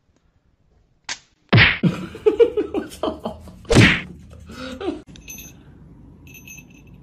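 A sharp click, then a sudden smack, then a cat meowing loudly in several bending calls. Two short high ringing tones come near the end.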